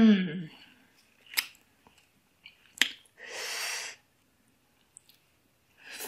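A few small clicks as fingers pick at a plate of papaya salad. Near the end comes wet slurping and chewing of a mouthful of crisp shredded green papaya.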